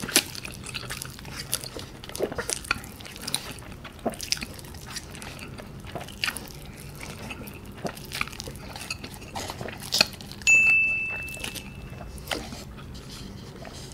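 Close-miked eating of Samyang cream carbonara instant noodles topped with cheese: scattered wet mouth clicks and chewing. A louder stretch about ten seconds in carries a brief high, steady tone.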